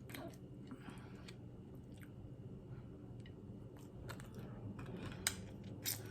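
Faint chewing close to the microphone, with scattered soft mouth clicks and two sharper clicks near the end.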